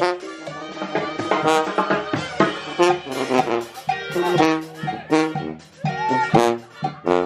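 Live brass band with a sousaphone playing a rhythmic tune of short, punchy notes.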